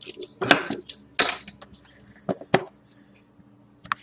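Several short clatters and rustles of objects being handled and set down on a table, likely the boxes of trading cards about to be opened.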